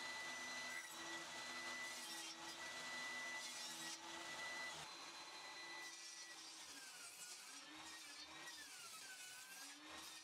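Portable table saw running and cutting rabbet and lap joints in a pine 2x4, a steady motor-and-blade whine over sawing noise. In the second half the pitch sags and recovers a few times as the blade takes load in the wood.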